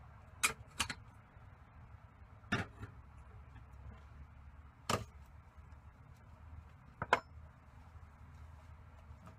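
A handful of sharp clicks or knocks at irregular intervals, over a low steady hum.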